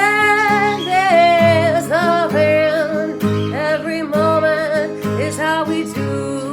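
A song with strummed acoustic guitar and a singing voice that holds and slides between notes, dropping out about a second before the end while the guitar plays on.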